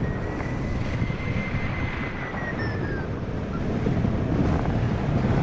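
Airflow rushing over the microphone in flight, with a hang-gliding variometer beeping rapidly over it, its pitch rising and then falling as the climb rate changes, stopping about three seconds in.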